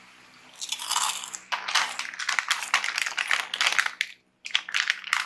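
Plastic snack bag crinkling as it is picked up and handled in both hands, in dense crackling bursts with a short pause near the end.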